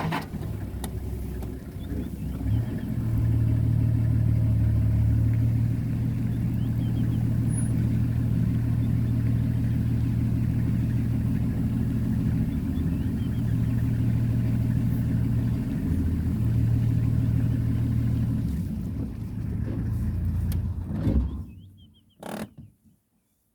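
Vehicle engine running steadily as a loud low hum for most of the stretch, dying away about two seconds before the end.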